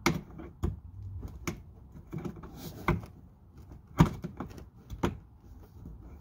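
Scattered sharp plastic clicks and knocks, about half a dozen, the loudest about four seconds in, as a hand works a fascia retaining clip loose up inside the front wheel-well liner of a 2011 Jeep Grand Cherokee WK2.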